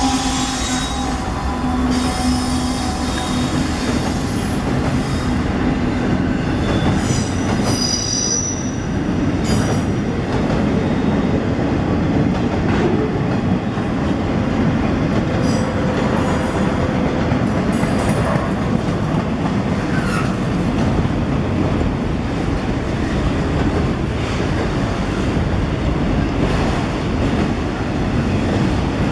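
A diesel freight train rolling past on a curve: the trailing GE locomotive's engine drone fades out in the first few seconds, leaving the steady rumble and clatter of freight cars on the rails. Thin, high wheel-flange squeals come and go as the wheels grind around the curved connecting track.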